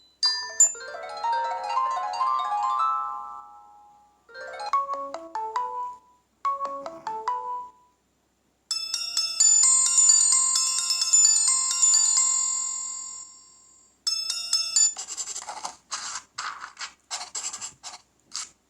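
Stock Samsung Galaxy Tab Active (Android 5) ringtones previewed one after another. First comes a rising run of chime notes, then two short melodic jingles and a bright high chiming tune that fades out, and near the end a quick rhythmic percussive pattern.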